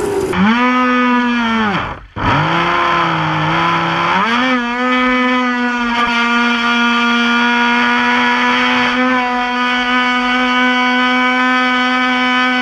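Radio-controlled speed boat's motor running at speed, a high whine with many overtones. The pitch sags and cuts out briefly about two seconds in, runs lower for a couple of seconds, then climbs at about four and a half seconds and holds steady.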